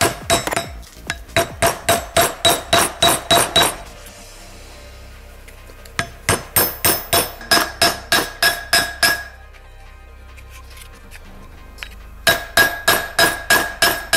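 Hammer riveting the ends of steel wire pins on a steel block: three runs of quick, ringing blows, about three a second, with short pauses between.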